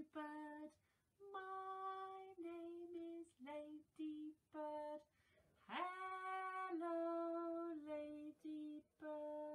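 A woman singing a slow, unaccompanied children's greeting song in short held notes with brief gaps between them, one note sliding up about six seconds in.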